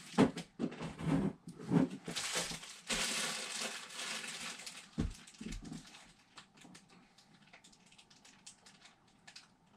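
Rustling, crinkling and clattering as someone rummages through things searching for a lost Lego Technic rod. The handling is loud for the first few seconds, then settles into scattered light clicks.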